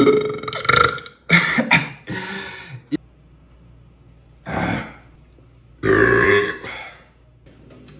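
A man burping loudly several times: a big burp carrying on into the first second, a few more over the next two seconds, then a shorter one about four and a half seconds in and a last loud one around six seconds in.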